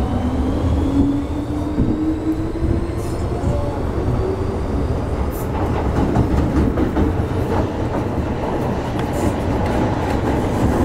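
Metro-Cammell EMU motor car in motion, heard from inside: the traction motors' whine rises in pitch over the first few seconds as the train gathers speed, then gives way to a steady rumble of wheels on the rails with scattered clicks.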